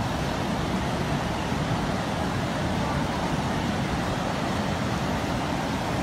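Torrent of muddy floodwater rushing past: a steady, even rushing noise with no breaks.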